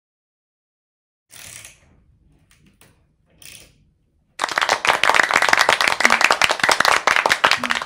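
A loud burst of applause, likely an added sound effect, starting about halfway through and cutting off abruptly. It follows two brief handling noises.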